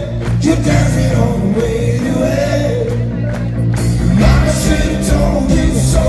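Live rock band playing loudly: electric guitars, drums and keyboards, with a melodic line on top. The sound grows fuller and heavier in the low end about four seconds in.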